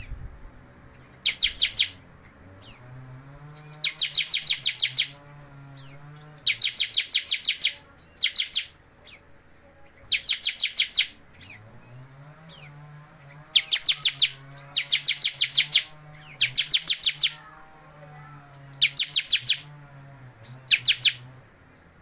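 Bar-winged prinia (ciblek) singing in short bursts of rapid, high, evenly repeated chirps, about ten notes a second. The bursts are repeated many times with brief pauses between them.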